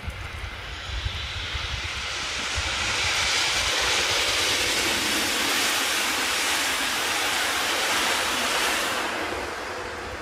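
Electric train passing by. Its noise swells over about four seconds, stays loud, then fades near the end.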